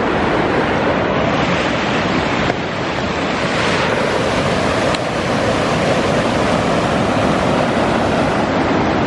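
A fast mountain river rushing over rocks and boulders, with a steady rush of white water.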